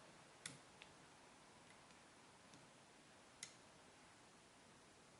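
A lock pick working inside a half Euro cylinder lock gives a few faint, sparse clicks; the two sharpest come about half a second and three and a half seconds in. Otherwise near silence.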